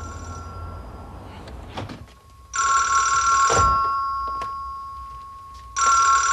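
Telephone ringing, still unanswered: two rings about three seconds apart, each starting loud and fading out, with the tail of an earlier ring at the start. A soft thump comes just before the first full ring.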